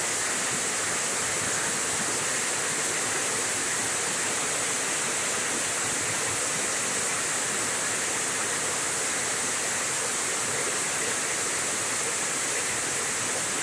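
Heavy rain pouring down steadily, a dense even hiss of falling water.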